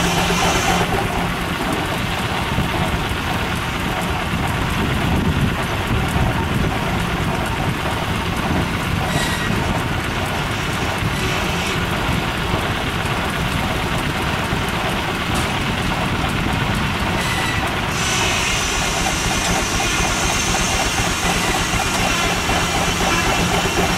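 Case steam traction engine running belted up, driving a long flat belt off its flywheel: a loud, steady mechanical rush with hiss. The upper hiss drops back about a second in and comes up again near the end.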